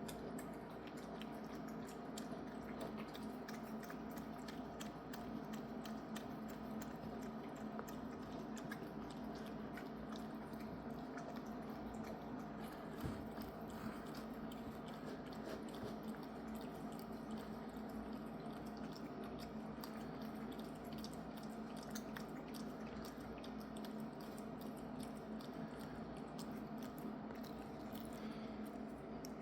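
A cat eating wet cat food: a continuous run of quick, wet chewing and smacking clicks over a steady low hum.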